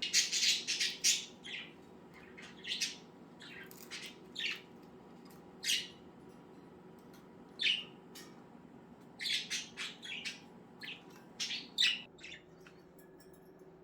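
Budgerigars chirping and squawking in short, scattered bursts of quick calls, with pauses in between.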